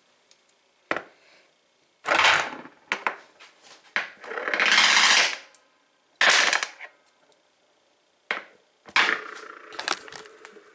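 Metal padlocks being spun by hand on a hard surface: a series of short scraping rattles and sharp knocks, with a longer whirring rattle from about four to five and a half seconds in.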